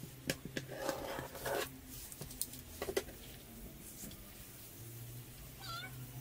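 Snap-off craft knife cutting a thin strip from a balsa sheet on a work table, with a short rasping cut and several sharp clicks and taps as the knife and strip are handled. A brief wavering high-pitched tone comes near the end.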